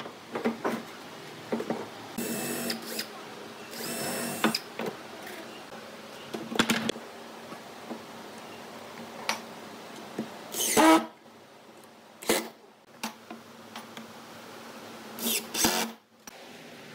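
Woodworking tools at work: a steady low hum broken by a string of short noisy bursts and knocks. Some bursts carry a high whine, and the loudest comes about ten seconds in.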